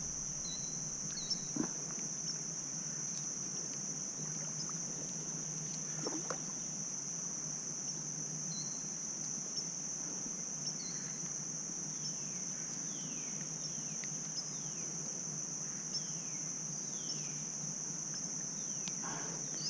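A steady, high-pitched insect chorus, with a few faint, short downward-sliding chirps in the later part.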